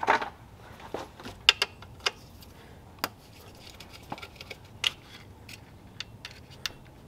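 Irregular metallic clicks and clinks of a socket wrench being fitted onto and worked on a 10 mm fastener, with a few sharper clinks spread through.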